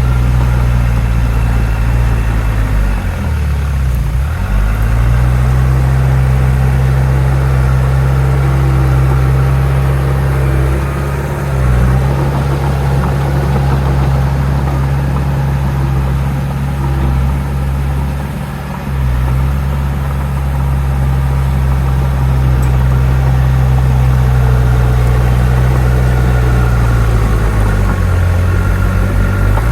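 Bulldozer's heavy diesel engine running steadily as it works, with a few brief dips in engine speed, the deepest about three to four seconds in.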